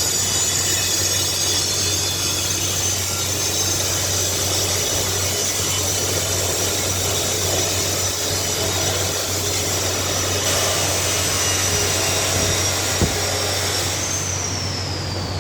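Angle grinder running under load against metal, its high whine steady for most of the time, then falling as it is switched off and spins down near the end. A steady low hum runs underneath.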